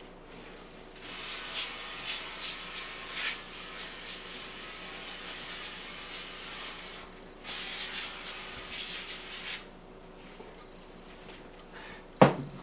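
A rough, hissing cleaning noise on a household ventilation fan, in two long stretches of about six and two seconds, followed by a sharp knock near the end.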